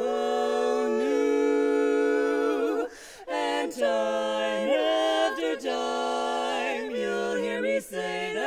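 Women's barbershop quartet singing a cappella in close four-part harmony: a long chord held for nearly three seconds, a short break, then a run of shorter, shifting chords.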